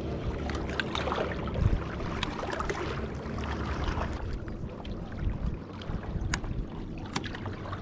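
Wind buffeting the microphone over a steady outdoor rush, with a few light clicks scattered through.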